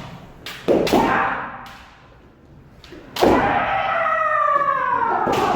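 Kendo sparring: a quick run of three sharp cracks from bamboo shinai strikes and stamping feet about half a second in, then a loud strike and a long drawn-out kiai shout starting a little after three seconds.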